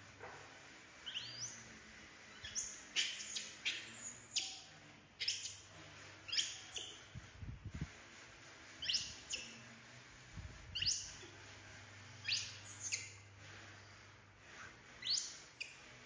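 Baby macaque giving short, high, squeaky cries that rise and arch over, about a dozen of them, one every second or so: a young monkey calling for its mother.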